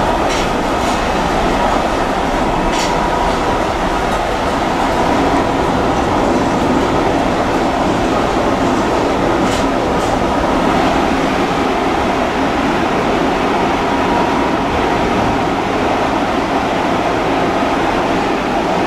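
Interior running noise of an Osaka Metro 400 series electric train car at steady speed: an even rumble of wheels on rail. A few sharp clicks come in the first three seconds and again about ten seconds in.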